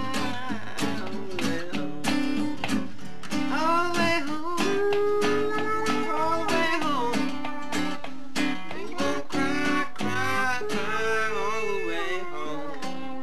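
Acoustic guitar being strummed, with a voice singing along in two stretches, a few seconds in and again near the end.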